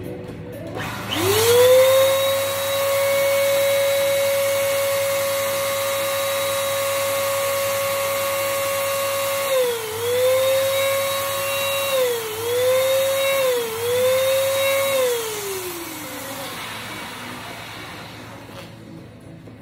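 Electric balloon pump starts about a second in and runs with a steady whine and a rush of air as it inflates a clear bubble balloon. Its pitch dips briefly three times, then it winds down with a falling whine a few seconds before the end.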